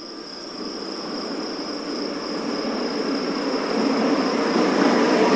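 Crickets chirring steadily while the noise of an approaching train grows louder.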